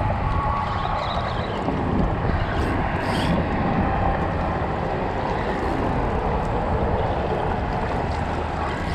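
Steady wind buffeting the microphone, with choppy water washing against shoreline rocks.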